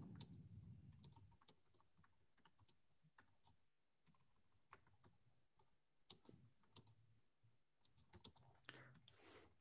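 Faint, irregular computer keyboard typing, scattered single keystrokes over near silence.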